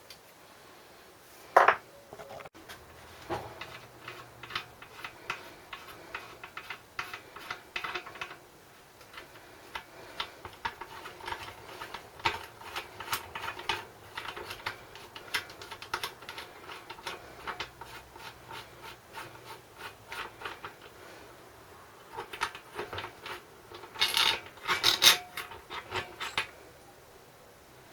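Metal hand tools and engine parts clinking, scraping and clattering during a small-engine teardown, with irregular clicks throughout, a sharp knock about a second and a half in and a louder run of clatter near the end.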